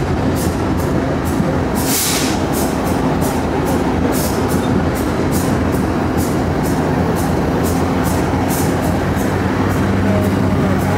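BNSF diesel locomotive engines running steadily, with a regular light clicking about two to three times a second and a brief hiss about two seconds in.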